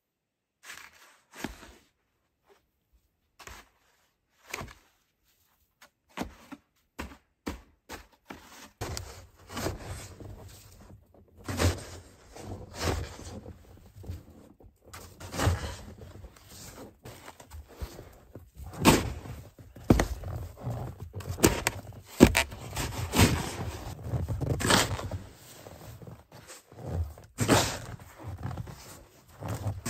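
Snow shovel scraping and scooping deep snow off a wooden deck, a run of scrapes and thumps. Sparse and faint at first, then closer and louder from about nine seconds in.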